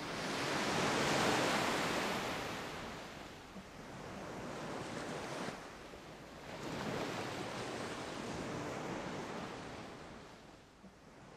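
Surf washing onto a sandy beach, swelling and fading about three times. The loudest wave comes near the start.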